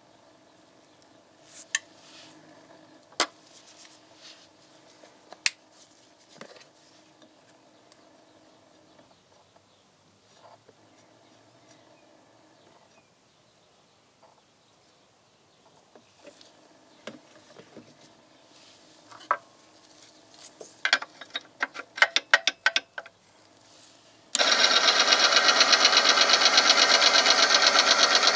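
A few sharp clicks and a quick run of clicks, then about 24 seconds in the oil-film test machine switches on abruptly and runs with a loud, steady, rapidly pulsing mechanical noise as it starts working the oil-covered test sample.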